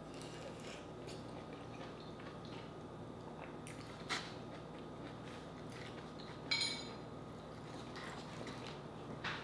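Close-miked wet mouth sounds of eating juicy orange slices, soft sucking and chewing, with small crackles and a few sharper clicks, the loudest about six and a half seconds in.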